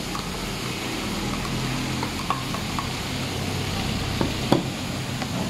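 A silicone-headed serving spoon stirring chopped onion and garlic in a plastic mixing bowl: a steady moist scraping and rustling, with a few sharp taps of the spoon against the bowl, the loudest about four and a half seconds in.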